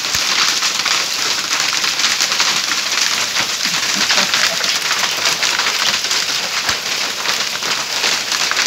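Hailstorm: a dense, steady clatter of hailstones pelting a paved courtyard floor, mixed with falling rain.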